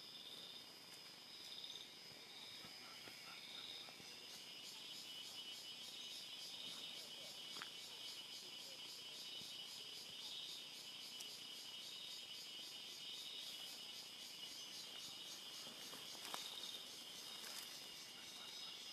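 Insects calling in a steady high chorus, with one pulsing call repeating about once a second. A second, faster and higher trill joins about four seconds in, and a couple of faint sharp clicks sound over it.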